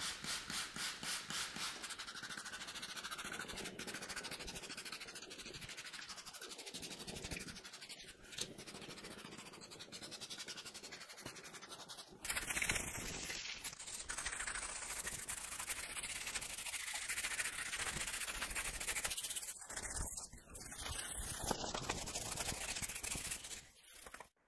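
Hand trigger spray bottle squirting cleaner onto an aluminium engine block, in quick squirts about three a second at first. From about halfway it becomes a more even, louder spraying hiss.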